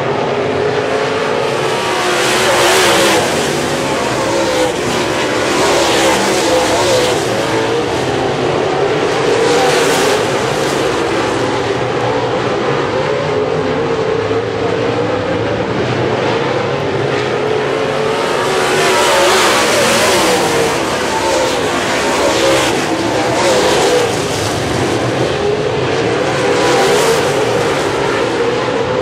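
Dirt-track modified race cars racing in a pack, engines at full throttle, swelling louder every few seconds as cars race past and fading as they go down the track.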